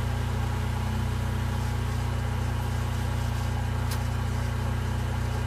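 Jeep Wrangler engine idling steadily with a low hum, running the on-board air system while a low tire is filled through an air chuck; a steady hiss sits over the hum. A single click about four seconds in.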